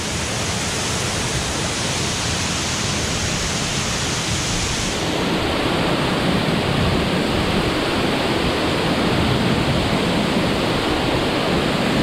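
Waterfall roaring as a steady rush of falling water. About five seconds in, the sound turns duller and deeper.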